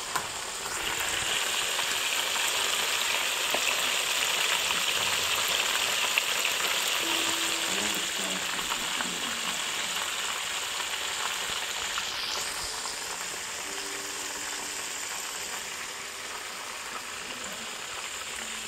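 Breaded chicken pieces deep-frying in hot oil in an electric skillet: a steady sizzle that swells about a second in and eases off after about twelve seconds.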